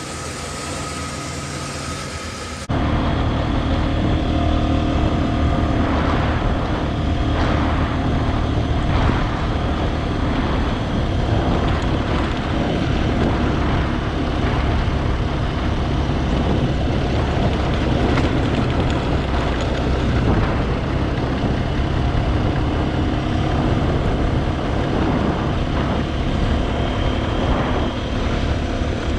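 SYM NHT 200 motorcycle engine running steadily while riding. Its loud, even drone cuts in suddenly about three seconds in, after a quieter steady hum.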